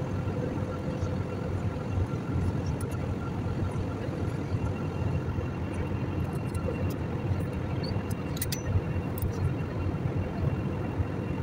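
Steady low drone of a jet airliner's cabin in flight: engine and airflow noise, with a faint steady hum on top. A few light clicks about eight and nine seconds in.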